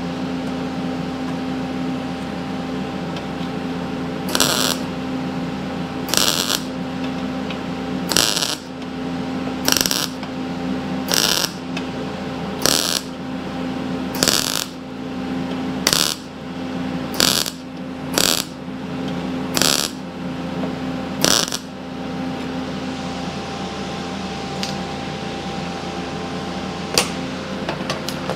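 MIG welder tack-welding thin sheet steel: about a dozen short crackling bursts of the arc, each roughly half a second long and a second or two apart, over a steady hum.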